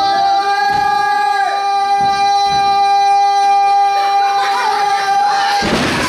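A long, steady, high-pitched yell held for about six seconds by spectators, with a second, lower voice holding along, as a wrestler is kept hoisted upside down in a vertical suplex. It breaks off near the end with a thud as the bodies hit the ring mat.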